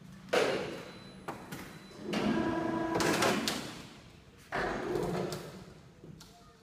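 Knocks and metallic scraping clatter on a loaded goods truck's bed as a worker handles the crane slings around aluminium coils: sudden knocks a few times, with a longer ringing scrape about two seconds in.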